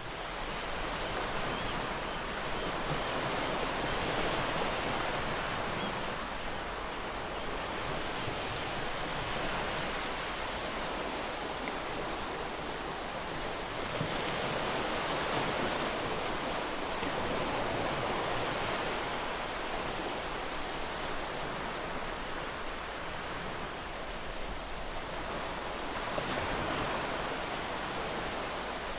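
Ocean surf breaking and washing on the shore: a continuous rush of white water that swells and eases slowly, with surges about 4 seconds in, around the middle, and near the end.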